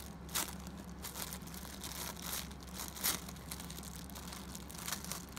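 Clear plastic packaging crinkling as a squishy is squeezed inside it, in scattered crackles, the loudest about three seconds in, over a steady low hum.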